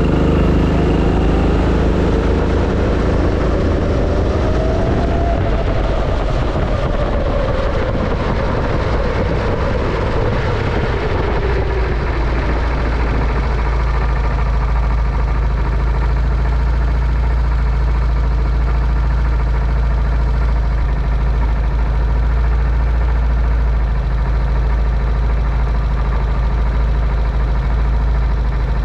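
Go-kart engine heard from onboard: its note rises and then falls away over the first dozen seconds, with road and wind noise, as the kart slows to a stop. It then settles into a steady idle at standstill.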